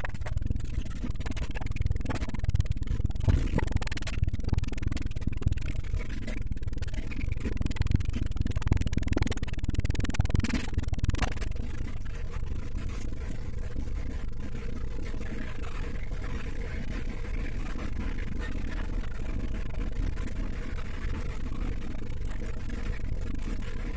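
Low rumble of a moving bus heard inside its cabin, with rattles and knocks through the first half that settle into a steadier noise later on.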